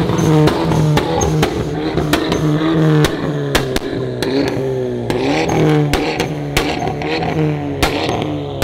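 Car engine revving, holding steady pitches and rising and falling, with many sharp exhaust pops and crackles.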